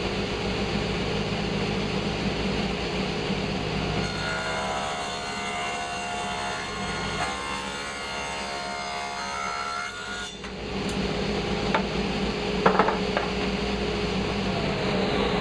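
Table saw and dust collector running steadily while the saw rips a thin strip of wood. During the cut, from about four seconds in to about ten, the blade's tone shifts under load. A few knocks come near the end.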